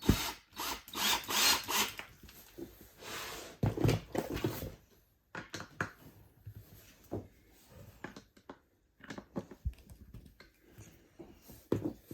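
Hand assembly of a particleboard chest of drawers: scraping and rubbing of panels and tools for the first few seconds, then scattered knocks and clicks as parts are handled.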